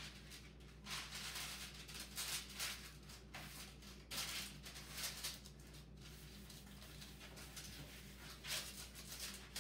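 Parchment paper rustling and crinkling in short bursts as it is handled and pressed flat into a metal jelly roll pan.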